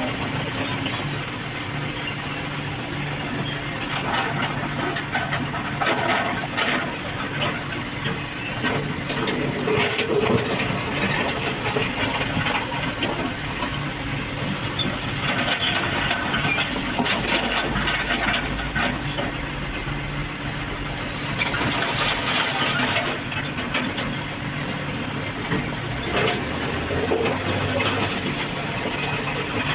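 Heavy diesel engine of an excavator running steadily, with scattered knocks and scraping clatter from the work.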